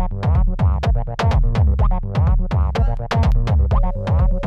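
Electronic drum-machine jam: a Korg Volca Kick plays a steady pattern of falling-pitch kicks under SOMA RoAT noise percussion hits, sent through a Korg NTS-1 for effects, with a Volca NuBass acid bass line. A held tone comes in near the end.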